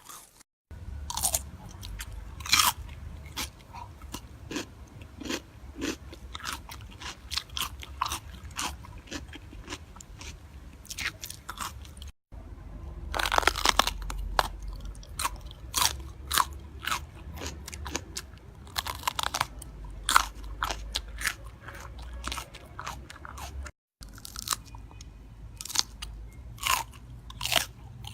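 Close-miked crunchy food being bitten and chewed, with dense, irregular sharp crunches. The sound drops out for a split second three times.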